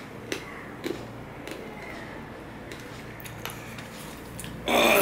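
Fingers gathering and mixing rice and curry on a stainless steel plate, with scattered soft clicks and scrapes against the metal. A short, loud noisy burst comes near the end.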